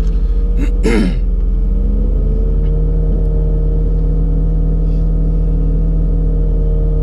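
Rally car engine idling, heard from inside the cabin: a steady low drone with an even pulse. About a second in there is a short rasping burst, like a throat being cleared.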